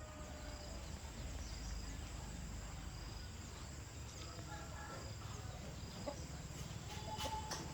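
Chickens clucking faintly over a steady low background rumble, with a few sharp clicks near the end.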